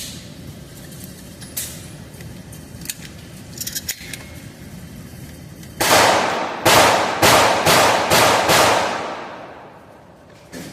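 A G-Force GF2P 12-gauge shotgun firing a rapid string of about six shots, roughly two a second, each blast ringing on and the echo fading after the last one. A few light clicks and knocks come before the shots.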